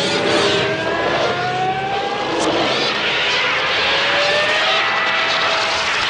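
The film's bird-attack soundtrack played backwards: a loud, steady din of thunderous wing-flapping and gull cries, with several drawn-out tones slowly rising in pitch.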